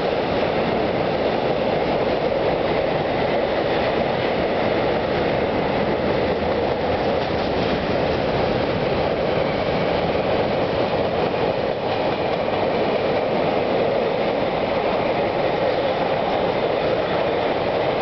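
Long freight train of open steel gondola wagons and sliding-wall wagons rolling past at speed. Its wheels run on the rails with a steady, loud rolling noise that does not let up.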